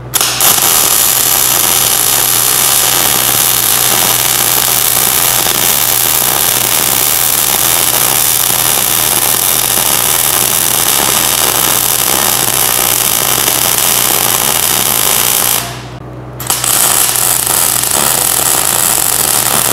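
MIG welding arc running steadily with a dense crackle while a pass of a multi-pass weld is laid around a hydraulic cylinder rod eye. The arc stops for about a second, roughly three-quarters of the way in, then strikes again and runs on.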